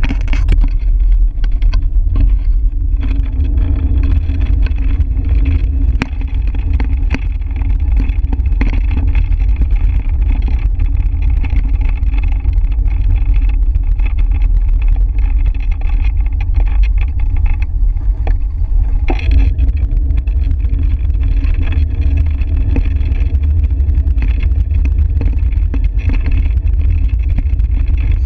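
Wind buffeting the microphone of a camera mounted on a moving bicycle: a loud, steady low rumble.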